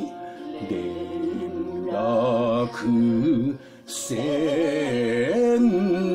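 Enka ballad: a woman sings long, wavering vibrato notes into a microphone over orchestral accompaniment, heard through a TV's speaker.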